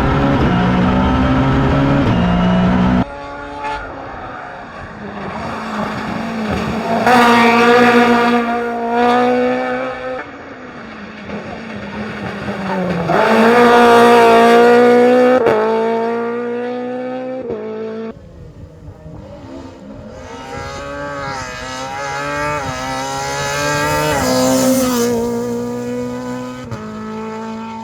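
Toyota GT86 rally car's FA20 flat-four engine revving hard and changing gear at full throttle, pitch climbing and dropping several times in clips cut together, with bursts of tyre squeal.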